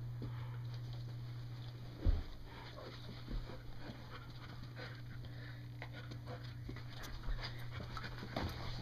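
A golden retriever and a puppy panting as they nose and paw at cargo shorts with a tennis ball velcroed to them, with scattered scuffs of fabric and a thump about two seconds in, over a steady low hum.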